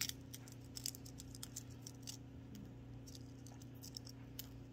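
Fingernails chipping shell off the end of a hard-boiled egg: a scattered run of faint, small crackles and clicks.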